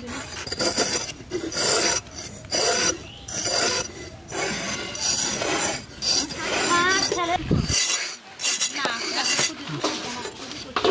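Bottle gourds being peeled against boti blades (curved blades fixed on a wooden base): repeated rasping scrapes as the green skin is shaved off, one or two strokes a second at an uneven pace.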